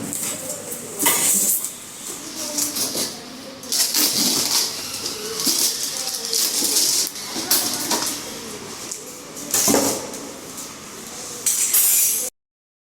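Irregular clatter and knocks of hard objects being handled, mixed with bursts of rustling. The sound cuts out abruptly to silence near the end.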